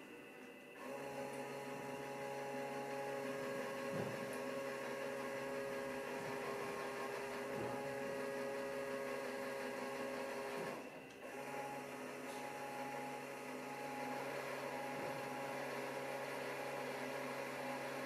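LEGO electric motors running steadily with a whine, driving a model submarine's propellers. They switch on about a second in, cut out briefly near the middle and start again.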